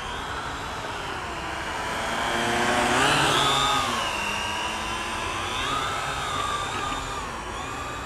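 Quadcopter drone's propellers buzzing, the whine gliding up and down in pitch as the motors change speed, loudest about three seconds in as it flies close.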